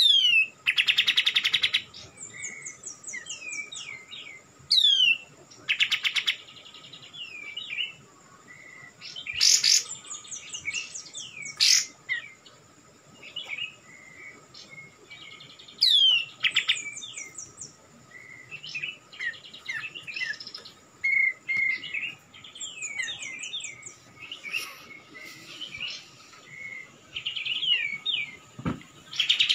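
Kapas tembak bulbul calling over and over: loud harsh rattling chatters, about every few seconds, mixed with quick downward-sliding notes and short whistled notes.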